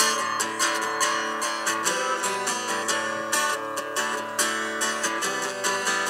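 Acoustic guitar strummed in a steady rhythm, chords ringing on between the strokes.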